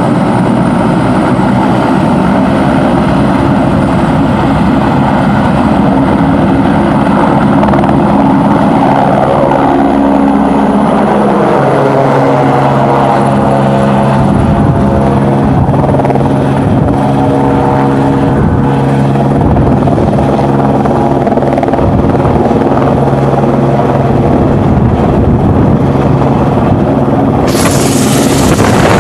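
A light helicopter's rotor and engine running loud and close as it hovers and moves overhead with a slung load on a long line; its tone falls about ten seconds in and then holds steady. Near the end a rush of wind hits the microphone.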